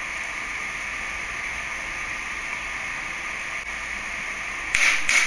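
Steady hiss with no distinct source, and a short scuffing noise in about three quick pieces near the end, as hands work at the rotor coupling under the viscometer head.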